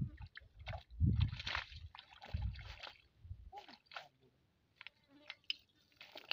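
Cast net being hauled through shallow water: sloshing and splashing in the first three seconds, loudest about a second in and again around two and a half seconds. Then the net comes out onto the bank, leaving only scattered light ticks.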